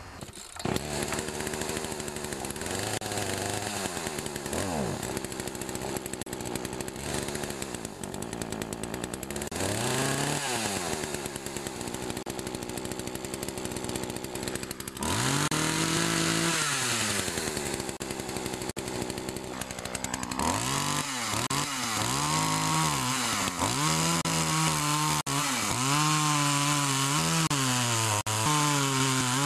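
Poulan 2550 SE 40cc two-stroke chainsaw running, with its engine revved up and back down several times. In the last third it is throttled up and down in quick repeated cycles.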